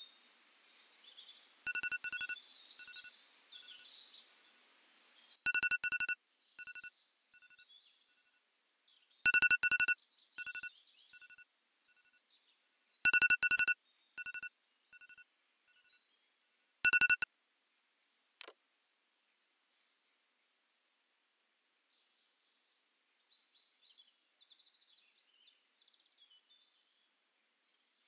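Mobile phone ringing with an electronic beep tone. Five bursts come about four seconds apart, each a loud beep followed by quickly fading repeats. Birds chirp faintly throughout, and a short falling sweep sounds just after the last burst.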